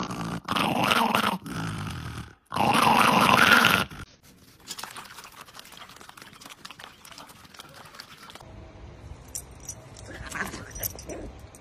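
A small dog growling in three bouts, each about a second long, as a hand holds its jaws open. Then quieter rapid clicking of puppies eating from a bowl.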